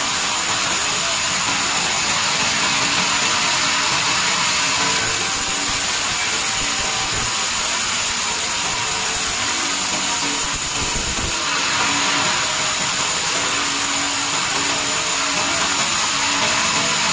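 Log band saw running steadily while its blade cuts lengthwise through a squared log fed past it on the carriage.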